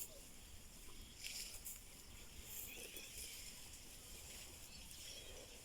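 Faint outdoor ambience: a low steady rumble with a few soft scattered rustles and clicks.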